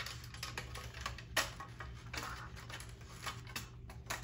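Irregular small clicks and taps of a relay circuit board being pried off its plastic clips and handled against its metal bracket, with one sharper click about a second and a half in.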